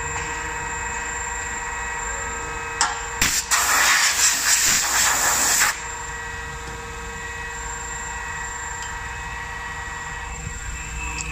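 Mepal milling machine's spindle motor running with a steady whine while it mills a water-drainage slot in an aluminium frame profile. About three seconds in, after a click, comes a loud hiss lasting about two and a half seconds, then the steady whine goes on.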